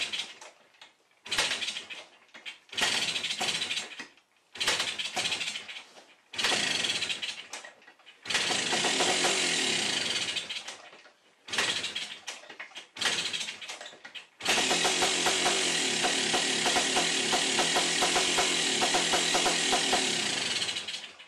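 Kawasaki F7 175cc single-cylinder two-stroke dirt bike being kickstarted over and over. It catches and runs for a couple of seconds, dies, takes two more kicks, then runs steadily for about six seconds before cutting out suddenly. The owner suspects an electrical fault, since it starts readily and then dies.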